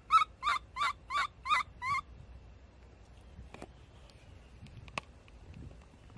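Baby monkey screaming: a quick run of about six short, high calls, each wavering in pitch, which stops about two seconds in. A few faint clicks follow.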